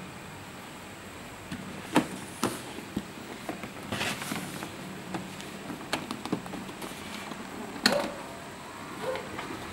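Keyboard packaging being handled and opened: irregular knocks and clicks with a brief rustle, the loudest knocks about two seconds in and near the end.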